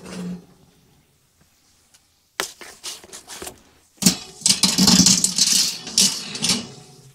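Metal oven rack being pushed back into a small range oven and the door shut: a click and a few light knocks, then about three seconds of rattling, clattering metal.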